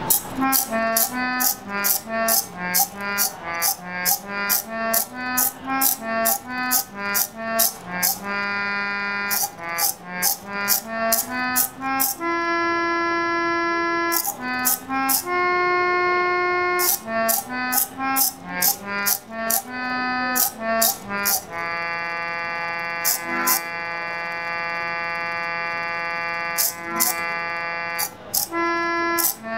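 Electric chord organ playing itself: a slow single-line melody in reedy, organ-like notes, with a sharp mechanical click from the servo-driven key pressers at nearly every note change. A few notes are held longer, and in the latter part a chord with a low note sounds for about six seconds.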